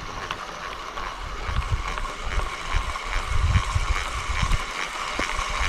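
Gusty wind rumbling on a GoPro's microphone, over a faint steady whir from a spinning reel being cranked to retrieve a spoon lure.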